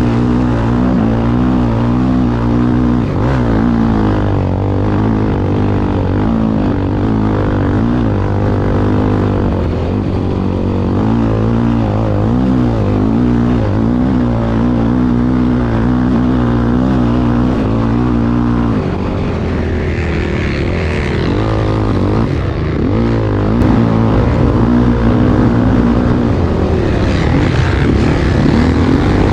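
Racing car engine running hard, its pitch wavering up and down with the throttle. It eases briefly about two-thirds of the way through, then builds again near the end.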